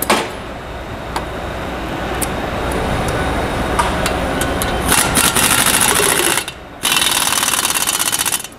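Pneumatic impact wrench hammering the impeller lock screw tight, torquing it to about 155 foot-pounds. It comes in two bursts of rapid hammering, about five seconds in and again just before seven seconds, with a short break between them.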